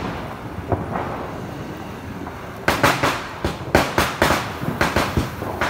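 Firecrackers bursting: after a quieter first half, a run of sharp bangs starts about halfway through, coming three or four a second at uneven intervals.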